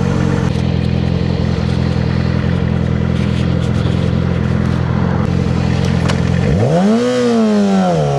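Yamaha R6 inline-four engine running at a steady low note, then about six and a half seconds in the revs climb and fall back, settling into a steady run.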